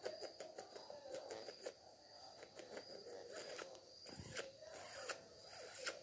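Faint, irregular clicks and crackles as fingers scratch an Indian ringneck parakeet's head feathers, with soft low sounds from the bird, over a faint steady high whine.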